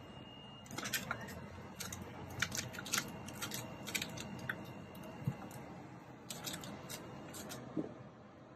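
Kitten claws scratching and clicking against a scratching post while batting at a feather toy: irregular sharp clicks in quick clusters, tailing off near the end.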